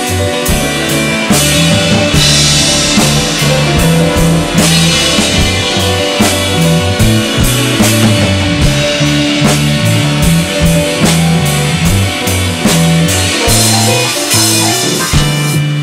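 Instrumental stretch of a rock song: a drum kit keeping a steady beat under a bass line and guitar, with no vocals.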